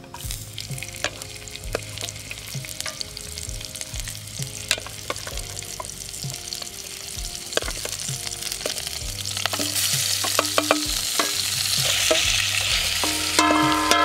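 Chopped bird meat sizzling in hot oil in a clay pot, starting suddenly as the pieces go in and getting louder over the following seconds, with small clicks and scrapes of a wooden spatula stirring the meat.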